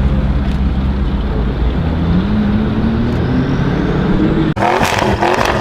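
Audi RS6 C7 Performance's twin-turbo V8 with a Milltek exhaust running under steady load, its note rising slowly in pitch from about two seconds in as it gains revs. Near the end the sound breaks off abruptly and turns rougher, with sharp crackles.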